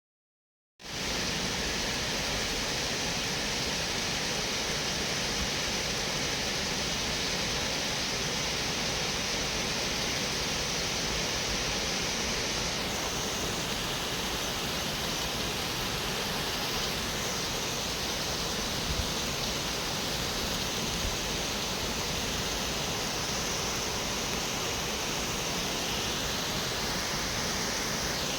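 Shiraito Falls, a broad curtain of many thin streams dropping over a cliff, making a steady rushing roar of falling water. It cuts in suddenly about a second in.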